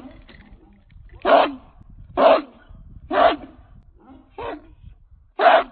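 American Pit Bull Terrier barking: five single barks spaced about a second apart, the fourth one softer than the rest.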